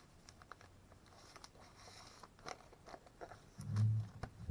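Comic books being handled and set aside: scattered light crinkles and clicks of paper and packaging, with a dull thump about three and a half seconds in.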